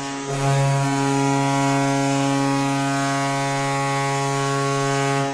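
Hockey goal horn, one long steady low blare with a brief dip right at the start, signalling a goal.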